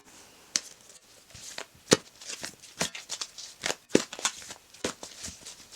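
Tarot cards being handled and shuffled: a run of irregular, sharp snaps and rustles.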